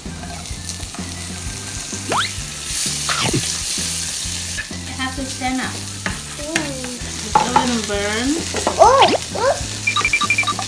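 Diced sausage and carrot sizzling in a hot non-stick frying pan as they are stir-fried with a spatula.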